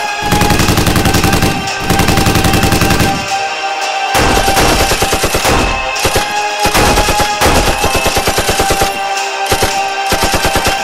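Dubbed-in sound effect of automatic gunfire: several bursts of rapid shots with short breaks between them, over background music.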